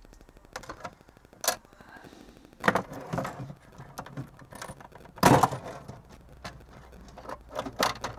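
Irregular clicks and knocks of small tools and plastic parts being handled while working on the inside of a kids' tablet, the loudest knock about five seconds in.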